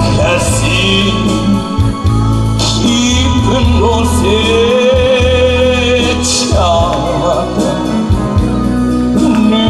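Male singer singing a Korean trot song over amplified backing music with a heavy bass line, holding one long note in the middle.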